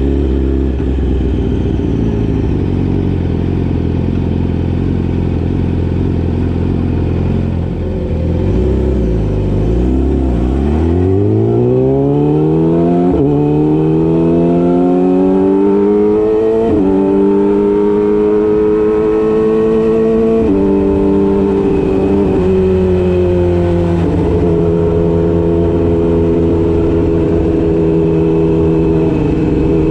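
Yamaha YZF-R6's inline-four engine running. Its pitch dips about nine seconds in, then climbs steeply as it accelerates, and holds high and fairly steady with a few small steps.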